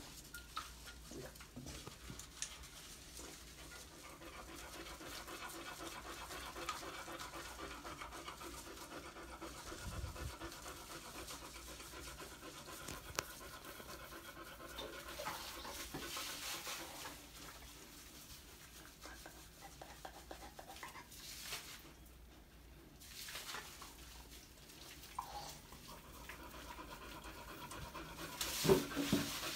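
Beagle panting steadily while being lathered in a soapy bath, with faint rubbing of wet fur. A brief louder noise comes near the end.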